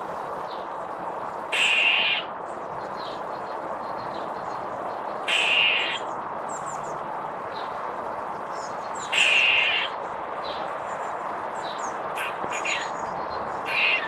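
Grey squirrel giving harsh barking alarm calls, three barks about half a second long and a few seconds apart, with a fourth beginning at the end: the calls of an agitated, angry squirrel.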